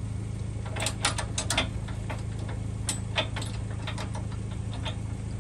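Quick metallic clicks and clinks in a few clusters as the boat trailer's coupler and safety-chain hooks are handled at the hitch, over the steady low hum of a pickup truck engine idling.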